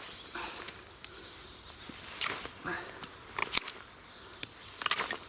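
A fixed-blade bushcraft knife slicing wood in a few short, sharp cuts as it shaves down the handle of a small carved spatula. A high bird trill sounds over the first two seconds.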